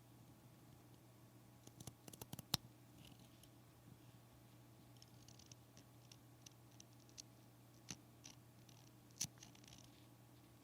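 Quiet handling of small sewing materials: a few sharp clicks, the loudest about two and a half seconds in with another pair near the end, and brief soft rustles, over a steady low hum.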